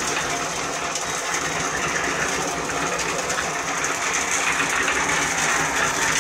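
Electric concrete mixer running steadily, its drum turning a wooden mandrel that winds rebar wire into spiral stirrups.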